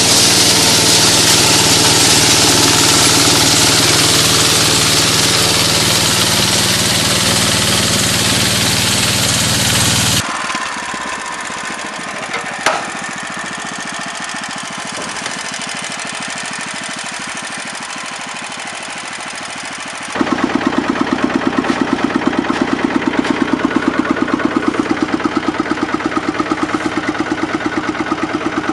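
Engine-driven farm machinery in three cuts. First a loud engine runs under a strong hiss. About ten seconds in it gives way to quieter machine noise with one sharp click. Near two-thirds of the way through comes a fast, even engine thumping of about six beats a second.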